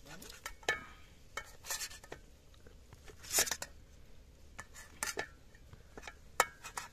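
Metal spatula chopping a thick egg omelette on a steel plate, its edge scraping and clicking against the metal plate in irregular strokes, the sharpest about three seconds in and again near the end.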